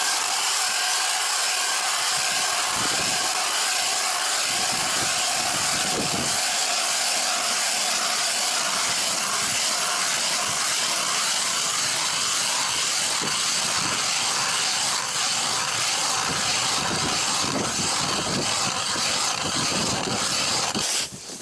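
A hand-cranked ice auger's blades shaving through lake ice: a steady, loud scraping hiss that pulses in an even rhythm with each turn of the crank, cutting off abruptly near the end.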